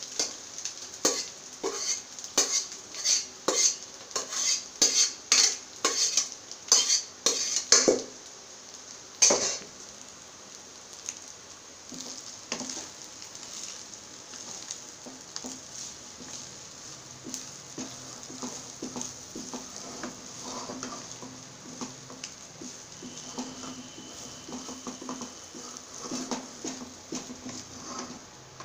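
A spoon knocks and scrapes against the frying pan as boiled rice is scooped in, about two sharp knocks a second for the first nine seconds, ending in one louder knock. After that a wooden spatula stirs the rice in the pan over a faint sizzle, with small scattered clicks.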